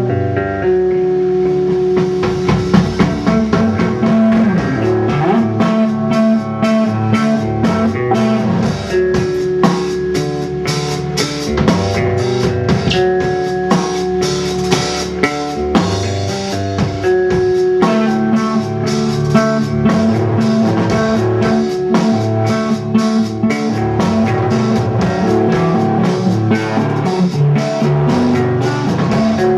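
Instrumental rock trio playing live: a repeating electric guitar riff over bass guitar, with the drum kit and cymbals joining about two seconds in and keeping a steady beat.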